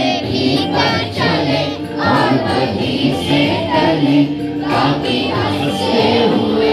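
A group of children singing a prayer together in chorus, with steady held notes.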